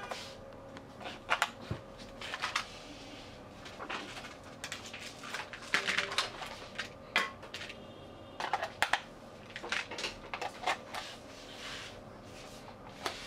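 Hard plastic of a toy transforming robot car clicking and clacking in the hands as it is turned over and its parts are moved, with irregular snaps and rattles. A faint steady hum runs underneath.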